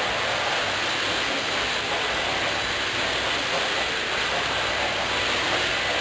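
Corded stick vacuum cleaner running steadily as it is pushed back and forth over a tiled floor, a continuous motor and airflow noise.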